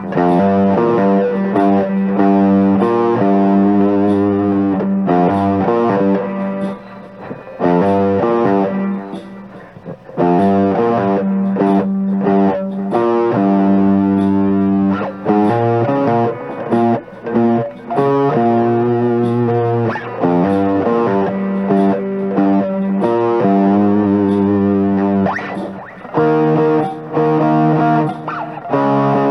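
Electric guitar, an Epiphone Les Paul Standard, played through an overdrive pedal and a small JOYO MA-10B practice amp: a jam of picked notes and chords with a distorted edge, in repeating phrases with short breaks between them.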